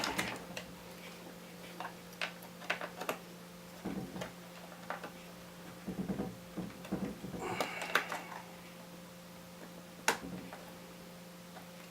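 Irregular small clicks, taps and knocks of components being handled and worked back into place inside an opened iMac, with a sharp click about ten seconds in. A steady low hum runs underneath.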